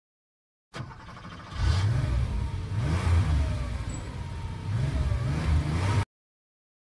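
Car engine revving, its pitch rising and falling several times. It starts quietly, grows louder after about a second, then cuts off suddenly.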